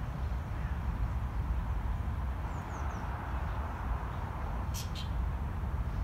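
Outdoor ambience: a steady low rumble with a faint hiss over it, and three faint high bird chirps about halfway through. Two short sharp ticks come close together near the end.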